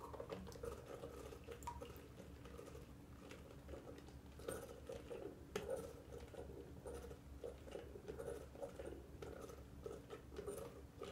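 Octonauts Gup-D bath toy's plastic water pump being pressed over and over, a faint, irregular run of soft squeezes. It is pushing water through the hose into the Barnacles figure's helmet to fill it and make him sink.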